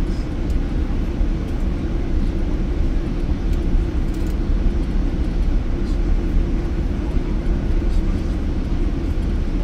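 Jet airliner cabin noise: a loud, steady, low-pitched rush of engine and airflow noise heard from inside the cabin.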